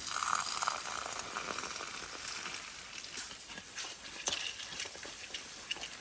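Hot water poured from a small cooking pot into a freeze-dried meal pouch, a hissing pour that starts suddenly and tails off within a couple of seconds. After it, the foil pouch crinkles and rustles as it is handled and pressed closed.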